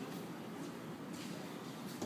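Quiet badminton play on a concrete court: a few faint taps of racket on shuttlecock and shoes on the floor over the hall's room tone.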